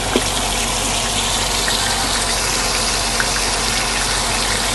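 Chicken drumsticks frying in hot vegetable oil in a stainless steel pan: a steady sizzle, with a couple of small clicks, about a fifth of a second and about three seconds in, as pieces are laid in.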